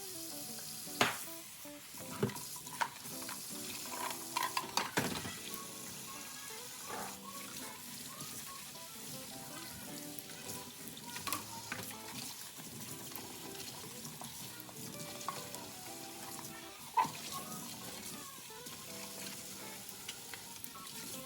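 Tap water running steadily while strawberries are rinsed, with a few sharp plastic knocks and clatters, the loudest about a second in and near 17 seconds. Light background music plays underneath.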